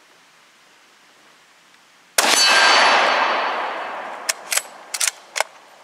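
A single shot from a scoped bolt-action rifle about two seconds in, echoing and fading over about two seconds. It is followed by four sharp metallic clicks, the bolt being worked to eject and chamber a round.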